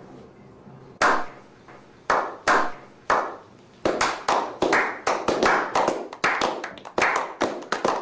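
A small group slow-clapping: single hand claps about a second apart, then from about four seconds in the clapping turns quicker and overlapping.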